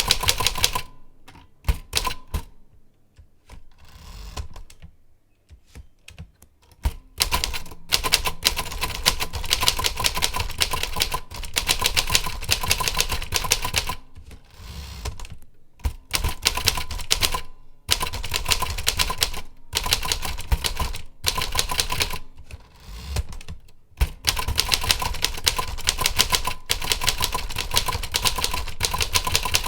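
Typing on a keyboard: fast runs of key clicks in bursts, broken by short pauses about 3 seconds in, midway and about two-thirds of the way through.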